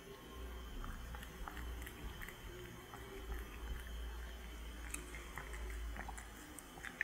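A cat chewing a roe-coated sushi roll: small wet mouth clicks and smacks, off and on, over a low steady hum.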